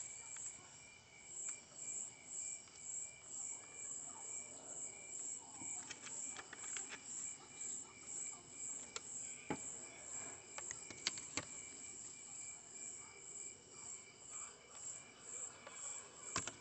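Crickets chirping steadily in a high, even pulse, about three chirps a second, with a few light clicks of small parts being handled.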